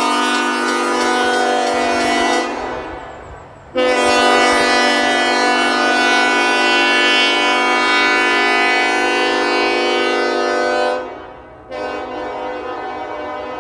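Nathan Airchime K5LLA five-chime locomotive air horn, with its 1L bell reversed, sounding long blasts of a steady chord. A blast is already sounding and tails off between about two and a half and three and a half seconds in. A long blast then starts abruptly at about four seconds, holds until about eleven seconds and dies away, and another starts abruptly at about twelve seconds.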